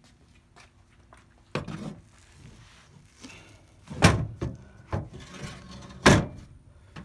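A handful of separate thumps and knocks, the loudest two about four and six seconds in.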